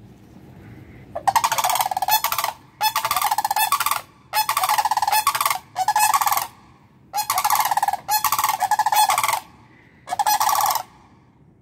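Sandhill cranes calling: a run of about seven loud, rolling, rattling calls, each about a second long with short gaps between them.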